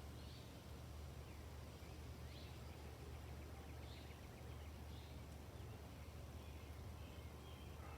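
Faint outdoor ambience: small birds chirping in short high notes every second or so, with a quick run of notes about three seconds in, over a steady low hum.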